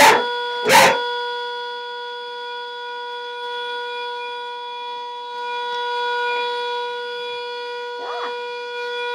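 Stovetop kettle whistling steadily at the boil: one held pitch with overtones. About a second in, a short loud burst of noise. Near the end, a brief rising-and-falling cry.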